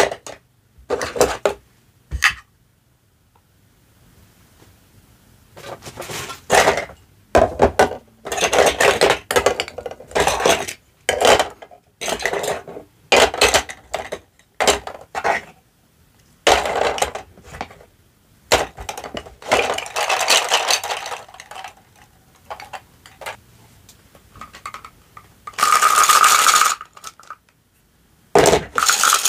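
Hard plastic toy food pieces and toy dishes clattering and clicking as they are handled and set down, in irregular bursts, with one longer stretch of rattling near the end.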